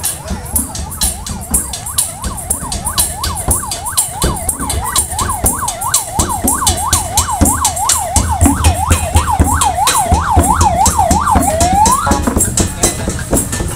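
An electronic yelp siren from a vehicle in the parade convoy, sweeping rapidly up and down about three times a second, stopping with one rising glide about twelve seconds in. Underneath run a constant rapid clicking and a low rumble.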